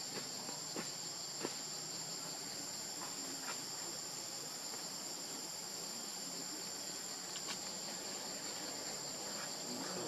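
Steady, high-pitched insect chorus, with a few faint clicks scattered through it.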